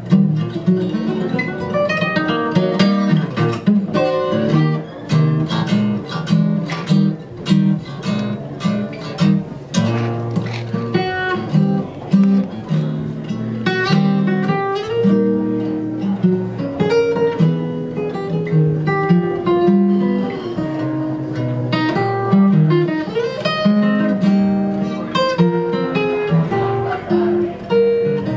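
Solo acoustic guitar playing a jazz tune, a mix of chords and quick runs of plucked notes.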